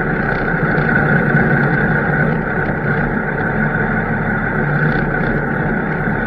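Large farm tractor's diesel engine running steadily, with a constant high whine over the engine hum.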